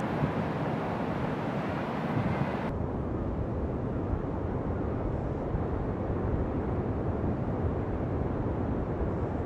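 Steady rushing of wind on the microphone over the low, continuous roar of ocean surf breaking on the beach.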